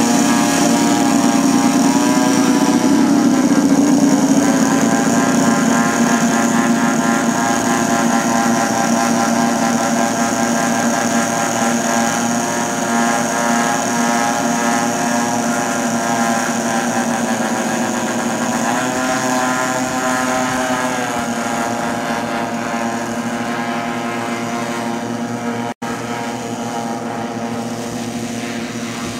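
Engines of a large radio-controlled model Lockheed Super Constellation running as it taxis, several engine notes sounding together. The pitch dips and comes back up about 3 seconds in and again around 19 seconds, and the sound slowly fades as the model moves away, with an instant's dropout near the end.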